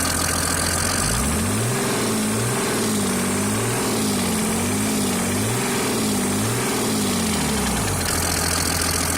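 Mercedes-Benz OM603 inline-six turbodiesel idling, then revved up and down several times in quick succession before dropping back to idle. The owner describes a strong knock that is always there and speeds up with revs, which appeared after the engine lost oil; its cause is unknown to him.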